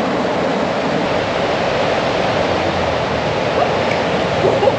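Triberg waterfalls rushing down, a loud, steady roar of falling water.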